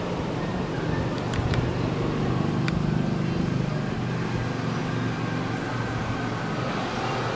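Steady low background rumble, like a motor or distant traffic, with a few light clicks in the first few seconds.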